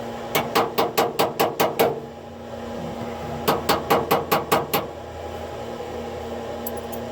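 Two quick runs of about seven sharp taps each, roughly five a second, as padlock cylinder parts are knocked on during disassembly for rekeying, over a steady low hum.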